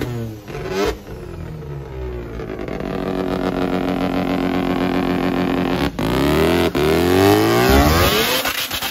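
Small microvan engine revving hard through a burnout, the rear tyre spinning and smoking. The revs dip about a second in, then climb and hold high, with two brief cuts near the end.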